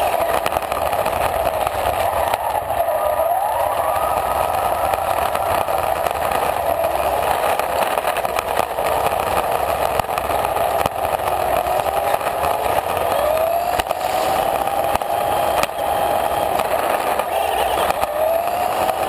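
Radio-controlled car driving over gravelly asphalt, heard from on board: its motor whines, rising and falling in pitch several times as it speeds up and slows, over a steady rush of tyre and gravel noise.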